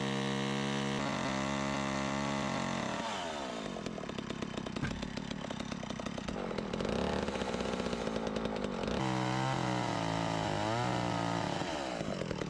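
Chainsaw running steadily at speed, then dropping in pitch about three seconds in as the bar bites into wooden wall boards and cuts, with the engine rising and falling in speed near the end.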